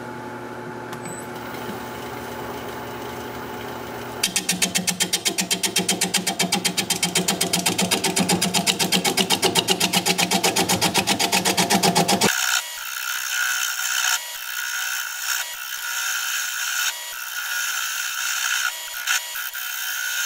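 Wood lathe turning a rough live oak bowl blank while a bowl gouge flattens its bottom. First the lathe's steady hum, then from about four seconds an interrupted cut that knocks rhythmically several times a second and grows louder. From about twelve seconds it becomes a steadier scraping cut with short breaks.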